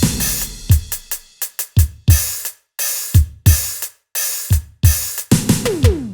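Electronic drum sounds from a Roland SPD-30 Octapad: bass-drum hits, each dropping in pitch, paired with cymbal crashes at a steady beat, then a quick fill of descending-pitch electronic toms near the end.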